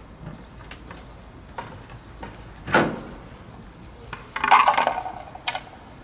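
Screwdriver clicking at the screw of the terminal-box cover on an LG outdoor air-conditioner unit, then the cover coming off: a single knock a little under three seconds in, and a short clatter and scrape with some ringing a little after four seconds, ending in one more click.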